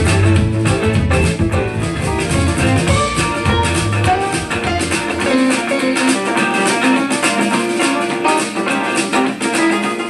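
Guitar music played through small USB-powered computer speakers with a home-built subwoofer. About halfway through, the subwoofer is faded out: the deep bass drops away and only the small speakers' upper range is left.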